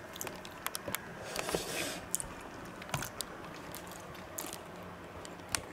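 A person chewing a mouthful of bacon-and-egg muffin, with soft mouth noises and scattered small clicks.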